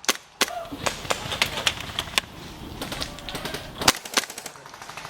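Airsoft guns firing scattered single shots, sharp pops at irregular intervals, the loudest about four seconds in. Faint voices sit underneath.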